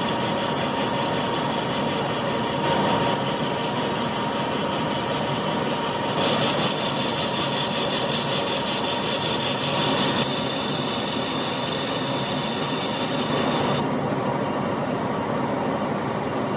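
Colchester Master 2500 lathe running under power, turning a cast billet with a CNMG carbide insert: continuous machine noise with a steady high tone. The sound changes abruptly about six, ten and fourteen seconds in.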